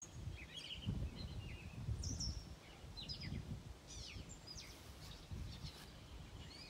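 Small birds chirping in short, scattered calls, over low gusts of wind on the microphone.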